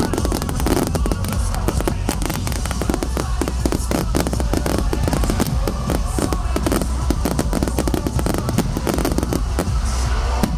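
Fireworks going off in a dense volley: many sharp bangs and crackles in quick succession. Loud pop music with a heavy bass plays underneath.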